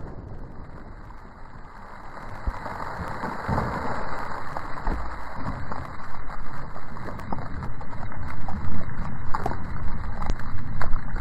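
The blast of a 12-gauge Mossberg Maverick 88 firing a 3-inch magnum buckshot round echoes and dies away over the first second. It is followed by a crackling, rustling noise that slowly grows louder.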